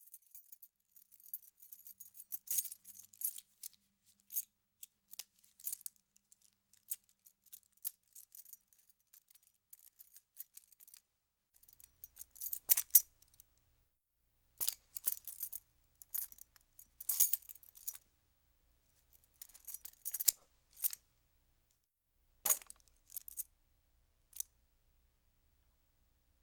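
A bunch of metal keys being moved and jingled, clinking in irregular bursts with short pauses between them. A quick patter of small clinks comes first, then several louder jangles in the second half.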